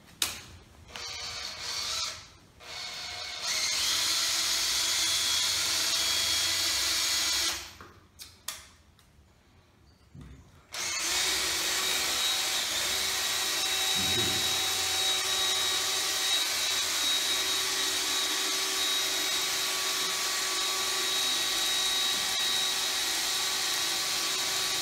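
Handheld electric drill running, likely boring holes in the steel tubing of the frame: a few short starts, a steady run of about four seconds, a pause, then one long steady run through the second half.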